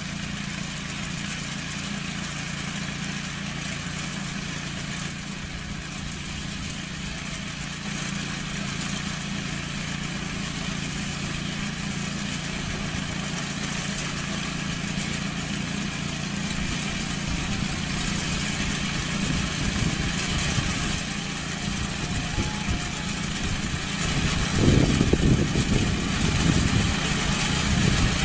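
Engine of a farm harvesting machine running steadily, growing louder and rougher in the last few seconds.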